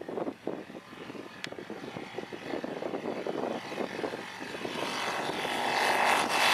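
Rotax 912iS Sport flat-four engine and propeller of a Zenith STOL light aircraft at takeoff power on its takeoff roll. The sound grows steadily louder as the plane comes toward the listener and lifts off near the end.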